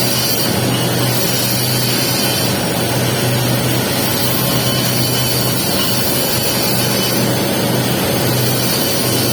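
Welding arc crackling and hissing steadily while a capping pass is run on a pipe joint, with a steady low hum underneath.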